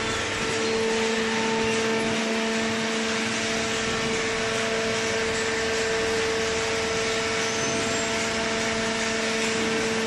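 Hydraulic cardboard baler's power unit, an electric motor driving the hydraulic pump, running with a steady hum at one constant pitch.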